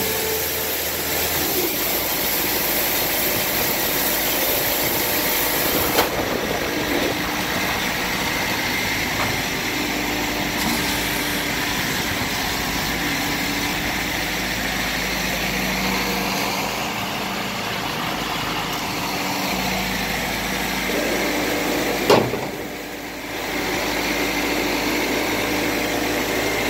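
Skid steer engine running steadily, with a sharp knock about six seconds in and another near the end followed by a brief drop in level.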